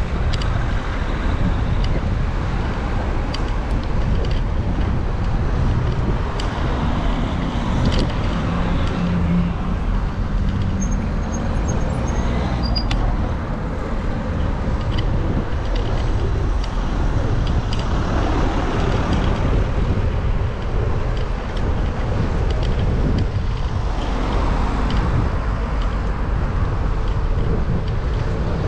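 Steady road and wind noise heard from a moving bicycle, with car traffic passing alongside.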